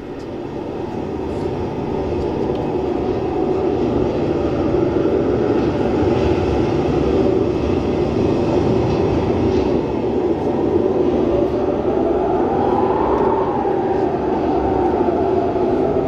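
A loud steady rumble that fades in over the first few seconds. Near the end a tone rises and then falls above it.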